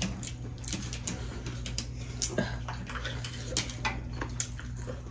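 Mukbang eating sounds: irregular small clicks, smacks and knocks as food is eaten by hand from metal plates, over a low steady hum.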